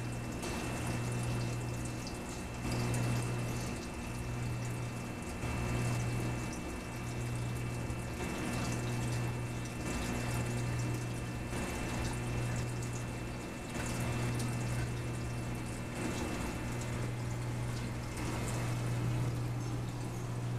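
Reef aquarium circulation pumps running: a steady low hum that dips briefly every second or two, over a wash of moving water.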